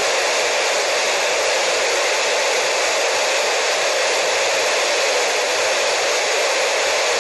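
Steady, loud static hiss from an amateur radio receiver tuned to the International Space Station's downlink, with no signal coming through between the crew's transmissions.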